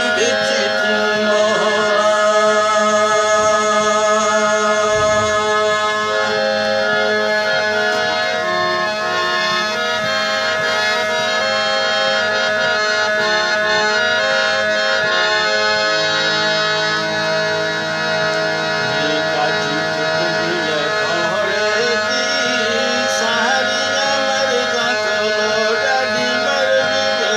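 Harmonium playing sustained reed chords and a slow melody. A wordless voice slides along with it near the start and again near the end.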